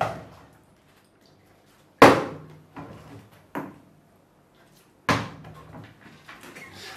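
Thumps on a wooden tabletop as bottles, cups and a plate of food are set down and moved about. There are two loud thumps about three seconds apart and a smaller knock between them.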